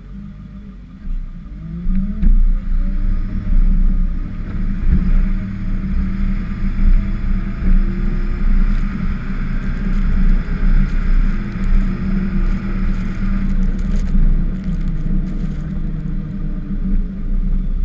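Ford F-550 plow truck engine picking up revs about two seconds in and then running steadily under load as the truck pushes snow with its plow, heard from on the hood. A hissing scrape of snow against the plow blade rises in the middle and fades again.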